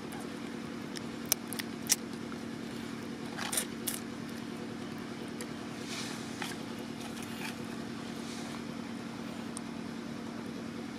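An engine running steadily at a constant pitch, with two sharp clicks about one and two seconds in and a few brief rustles.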